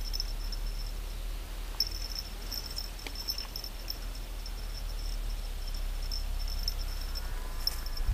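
Insects chirring in a continuous, unevenly pulsing high trill over a low rumble, with a short low thump at the very end.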